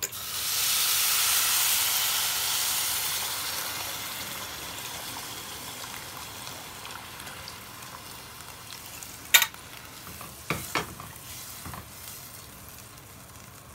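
Water poured into a pot of rice stirred in hot oil, hissing and sizzling loudly as it hits, then dying down over several seconds. A sharp knock comes about nine seconds in, followed by a few lighter knocks.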